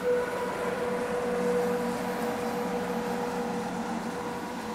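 Train of 25T passenger coaches rolling past on the rails: a steady rumble of wheels on track with a constant hum over it, easing slightly near the end.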